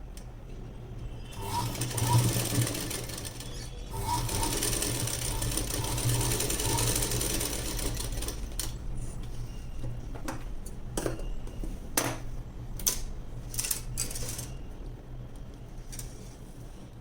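Sewing machine stitching a short tuck seam in two runs, one starting about a second in and a longer one from about four to eight seconds in, followed by a scattering of sharp clicks.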